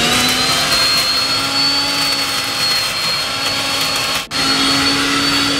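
Electric mixer grinder running at full speed with a steady high whine as it grinds a wet spice paste in its steel jar. It cuts out for a moment about four seconds in, then picks straight back up.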